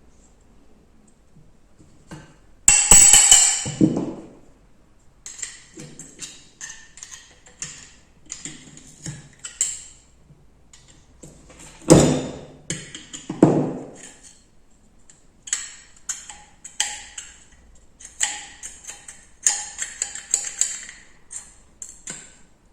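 Metal air-rifle parts being handled during disassembly: irregular clicks, taps and jingling clinks of steel on steel, with a few heavier knocks, the loudest about 3 s and 12 s in.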